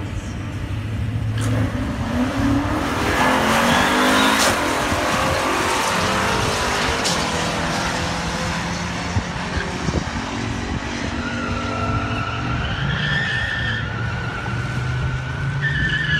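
Two drag-racing cars, one a 1968 Pontiac Firebird, launch at full throttle about one and a half seconds in. Their engines rise in pitch until a gear change about four seconds in, then keep running hard as the cars pull away down the track.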